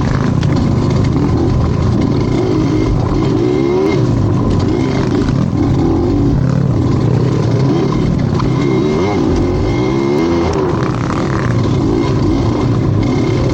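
A vehicle engine running loud, its revs rising and falling continually.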